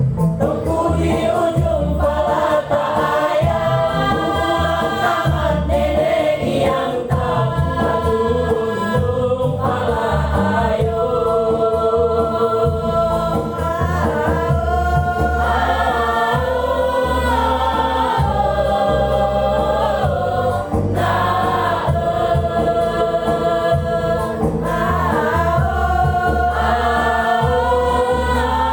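Choir singing in harmony.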